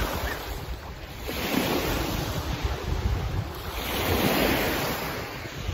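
Small lake waves washing onto a pebble beach, the wash rising and falling twice, with wind rumbling on the microphone.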